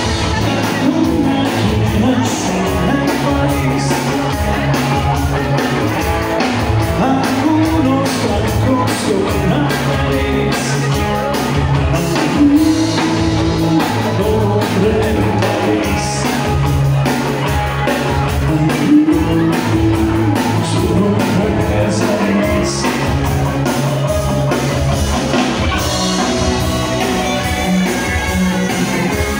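Live rock band playing loud in a bar, with a singer, guitar, bass and a steady drum beat.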